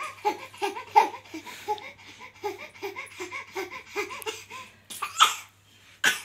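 Baby laughing in a long run of short, even "ha" sounds, about three a second, followed by a couple of breathy bursts near the end.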